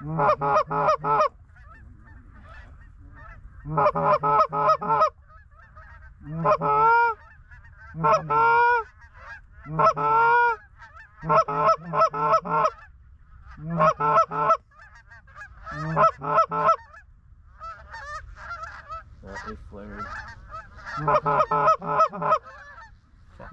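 Canada goose honks and clucks in quick runs of four or five notes, repeating every second or two, with a few drawn-out rising honks near the middle.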